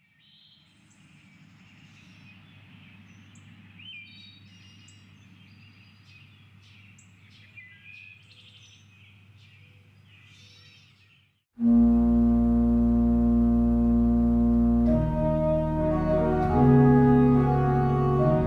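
Faint birdsong, short chirps and quick whistled glides, over a low steady hum; about eleven and a half seconds in, a church organ enters suddenly and loudly with a full sustained chord, which breaks into moving notes near the end.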